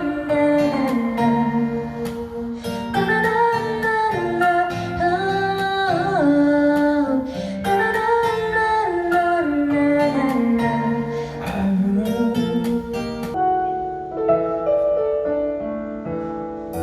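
Live pop ballad: a singer's wordless vocal line gliding over guitar accompaniment. About 13 seconds in the voice drops out and sustained instrumental chords carry on.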